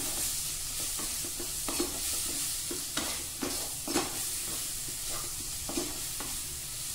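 Sliced onions and bell peppers sizzling as they stir-fry in a non-stick wok, with a wooden spatula tossing and scraping them in irregular strokes over the steady sizzle.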